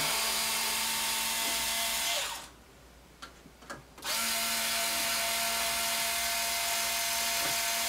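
Power driver backing out the two screws that hold the bulkhead down, running twice with a steady whine. The first run lasts about two seconds, then come a pause with a few light clicks and a longer run of about four seconds.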